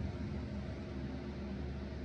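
Electric fan running steadily: a low hum under an even hiss.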